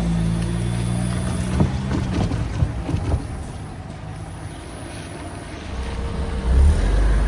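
Train at a railway level crossing. A steady low tone fades out about two seconds in, a few sharp clanks follow, and a low rumble builds near the end as a train draws close.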